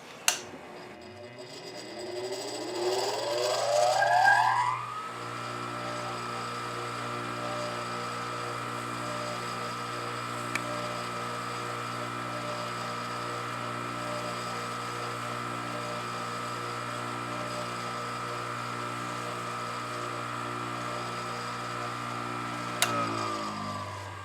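Baldor carbide tool grinder's electric motor switched on with a click, winding up with a rising whine for about five seconds. It then runs at speed with a steady hum and whine, and near the end it is switched off with a click and begins to coast down.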